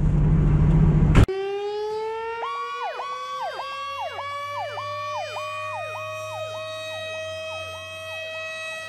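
Fire-truck cab and engine noise that cuts off abruptly about a second in. It gives way to a mechanical fire siren winding up in one slow, steady rising wail. From about two seconds in, an electronic siren yelps over it about twice a second.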